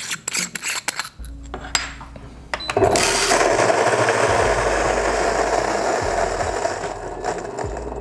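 A few handling clicks, then about three seconds in the Fellow Ode's 64 mm flat burrs start grinding a single 18 g dose of coffee beans: a loud, steady grinding noise that eases slightly toward the end.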